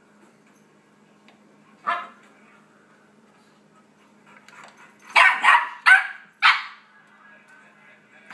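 Yorkie puppy barking: one bark, then a quick run of four barks a few seconds later, provoked by dog barks playing from a computer.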